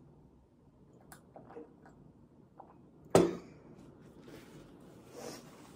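Faint sipping sounds from a tall glass of milky coffee, then about three seconds in a single sharp knock as the glass is set down on a wooden table. A softer noisy sound follows a little after five seconds.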